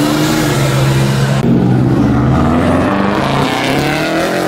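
A 1980s Buick Regal pulling away hard, its engine and exhaust loud and steady. About a second and a half in, it cuts to a Subaru Impreza's flat-four engine pulling away.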